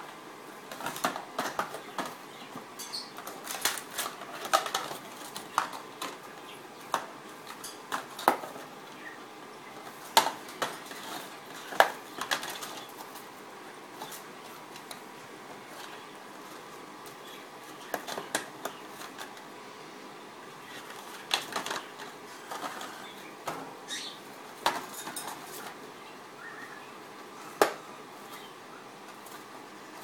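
An Amazon parrot battering a cardboard cracker box inside a wire cage: irregular bursts of sharp knocks and rattles as the box hits the cage bars and the wire floor grate, with quieter pauses in between.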